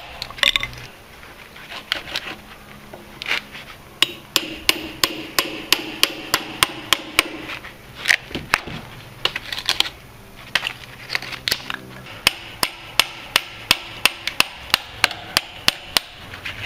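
Hammer striking a steel chisel driven into a hardwood railway sleeper: a few blows at first, then a steady run of about two to three blows a second, knocking the wood out along the grain in chunks after the grinder cuts.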